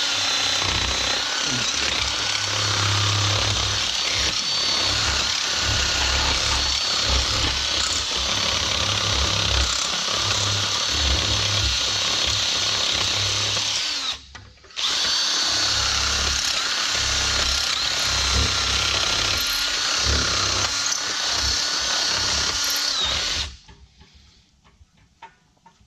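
Cordless drill running with its bit worked sideways in a hinge bolt hole, smoothing out an ovaled hole. It runs steadily with a constant whine, stops briefly about halfway through, runs again, then stops a couple of seconds before the end.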